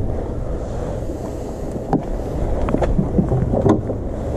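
Steady low rumble of wind on the microphone, with a cluster of footsteps and short knocks of handled gear on concrete in the second half.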